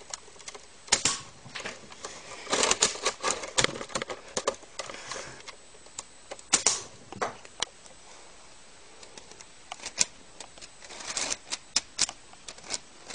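Plastic clicks and rattles of a Lego brick-built toy sniper rifle being handled and worked. The clicks come irregularly, in a dense flurry a few seconds in and again near the end, with single sharp clicks between.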